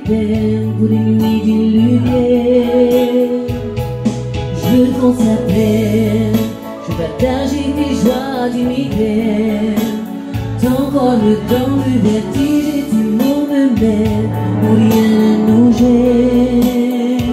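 A woman singing long, held notes with vibrato into a microphone, accompanied on an electronic keyboard with steady bass notes, played live through PA speakers.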